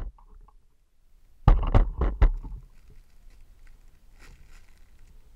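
Clear plastic toy packaging crinkling and rustling as bagged squishies are handled, in a few loud crackly bursts about one and a half to two and a half seconds in, then fainter crackling near four seconds.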